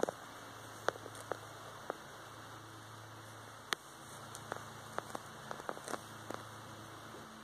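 Quiet backyard ambience: a steady low hum under an even faint hiss, with about a dozen sharp, irregular ticks and clicks scattered through it. No clucking is heard.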